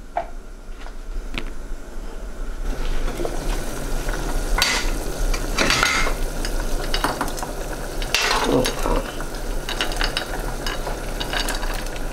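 A wooden spoon scraping frozen baby meatballs off a ceramic plate into a pot of hot tomato sauce. Over a steady sizzle from the pot, a few louder scrapes and clatters come around the middle.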